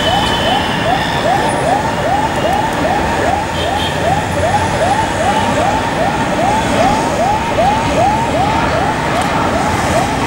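Emergency vehicle siren in a fast yelp, short rising-and-falling sweeps about three a second, over steady broad background noise.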